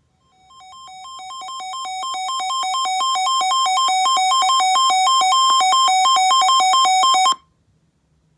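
Emergency Alert System attention tone: a loud, buzzy electronic tone rapidly alternating between two pitches, fading in over the first couple of seconds and cutting off abruptly near the end.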